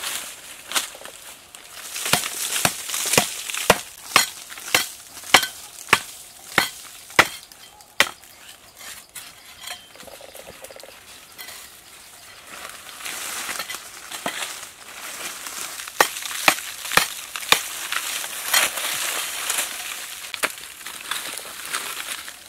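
Machete blade chopping into and prying at a hard, dry earth mound. A run of sharp chops comes about every two-thirds of a second, then scraping and crumbling of loose earth, then a few more chops.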